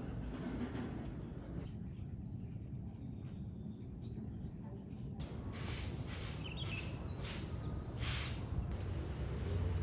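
Crickets trilling steadily over a low background rumble; the trill cuts off about halfway through. A handful of brief rustling sounds follow.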